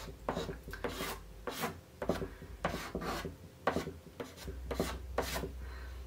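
Black chalk pastel scratching across paper in short, repeated strokes, about two a second, as lines of a drawing are outlined.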